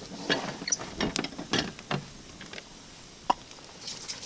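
Wood campfire crackling and popping in irregular clicks, busiest in the first two seconds, with one sharper pop a little after three seconds.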